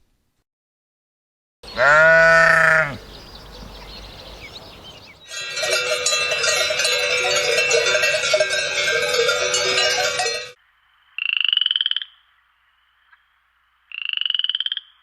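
A single loud animal call whose pitch rises and then falls about two seconds in, then a dense frog chorus for about five seconds, then two short, pulsing frog croaks a few seconds apart.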